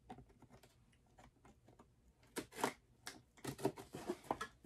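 Faint clicks and scratches of a small knife and fingers working at the seal of a cardboard box. The first two seconds are nearly silent, then comes a quick, uneven run of light ticks.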